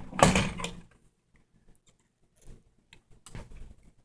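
Handling noise as the TV's power-supply circuit board is pulled out: a short loud scrape and rustle, then a few faint clicks.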